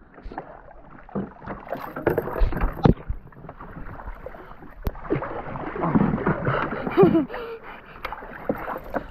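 A small wooden boat being paddled: the wooden paddle splashes in the water and knocks against the hull a few times in the first three seconds. A brief voice is heard about seven seconds in.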